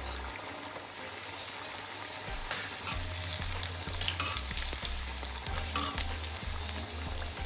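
Layered mathri deep-frying in hot oil over a low flame, a steady sizzle full of small crackles and pops. A few sharper clicks stand out, the first about two and a half seconds in, with a low hum underneath.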